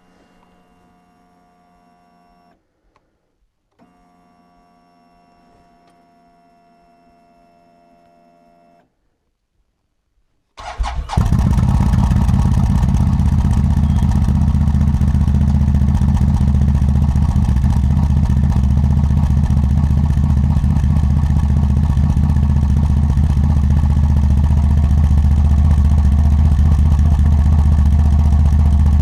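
A faint steady whine, then about ten seconds in the CF Moto ATV's engine cranks briefly, catches at once and keeps running steadily. It starts now that its oxidised ignition switch has been cleaned with contact cleaner.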